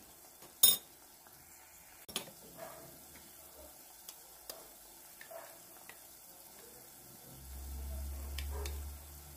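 A spoon clinks sharply against metal about a second in, then taps lightly a few times as tomato paste is spooned onto onions frying faintly in the pan. A low rumble comes near the end.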